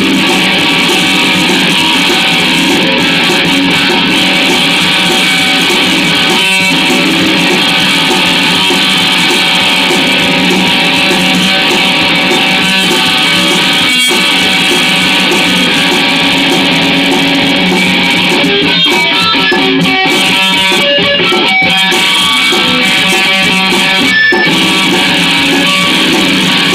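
Instrumental break in a song, led by guitar, with the full band playing steadily and no singing.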